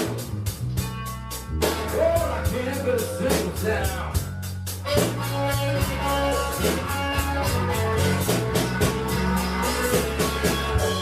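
A live band playing a slow blues: a lead line that bends its notes up and down over steady bass notes and a drum kit.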